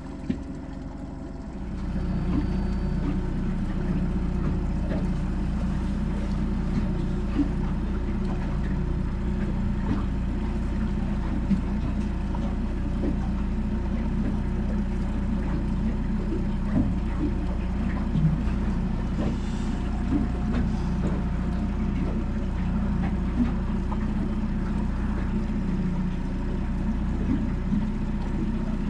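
Outboard motor running steadily at low trolling speed, a constant low hum that comes up louder about two seconds in, with faint small knocks now and then.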